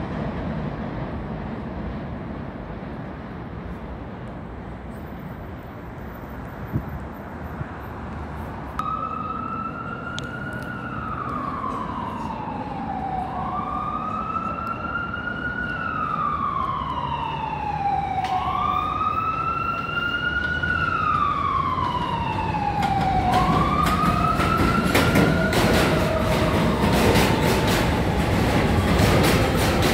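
An emergency-vehicle siren wails, its pitch falling and rising again about every two and a half seconds, starting about a third of the way in. Near the end a subway train runs into the elevated station, its wheels clicking rapidly over the rail joints and getting louder.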